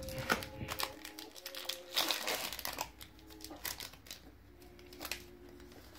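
Foil wrapper of a Pokémon Evolutions booster pack crinkling in the hands as it is opened. The crinkling is busiest in the first three seconds and lighter after that.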